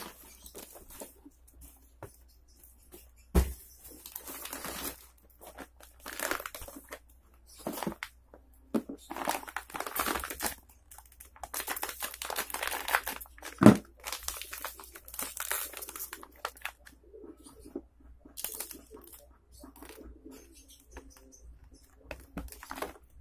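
Plastic packaging crinkling and rustling as it is handled, with tearing as a bag of crackers is opened. Two sharp knocks stand out, one about three seconds in and a louder one about fourteen seconds in.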